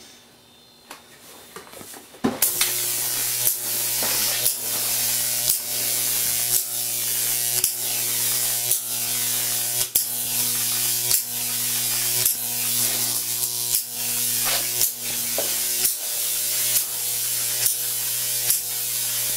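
Homemade Jacob's ladder on a 15,000-volt transformer switched on about two seconds in: a loud electric arc buzz with a steady mains hum and a crackling hiss. It is broken by a snap about once a second as the arc climbs the wires, breaks off at the top and strikes again at the bottom.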